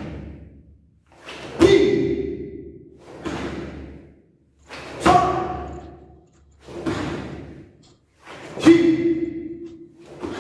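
A slow, even beat of heavy booming hits, about one every 1.7 to 1.8 seconds, alternating louder and softer. Each hit rings on for about a second as it fades.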